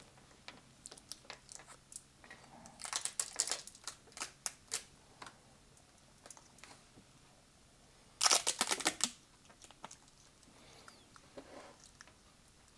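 Crinkling and crackling of clear plastic protective film being peeled off a metal watch bracelet, with small clicks as the bracelet links are handled. It comes in two runs of crackles: one a few seconds in, and a louder one around eight to nine seconds in.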